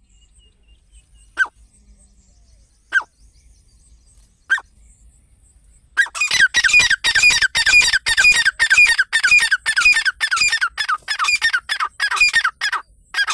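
Teetar partridge calling: three single sharp notes about a second and a half apart, then from about six seconds in a loud, fast run of repeated call notes, about three a second.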